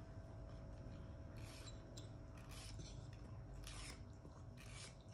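A metal nail file rasping against a dog's claws in short repeated strokes, about one a second from about a second and a half in; faint.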